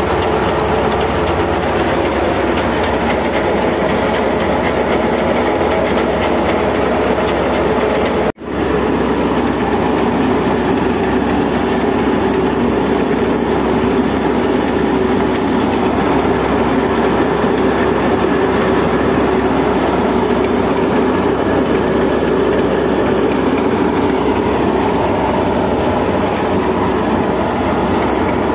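Wheat thresher running steadily while threshing wheat, a loud continuous mechanical rattle and drone, with a momentary break about eight seconds in.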